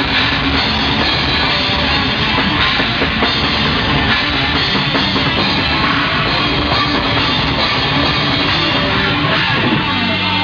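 A rock band playing live at full volume, with a drum kit and cymbals hit hard under the rest of the band.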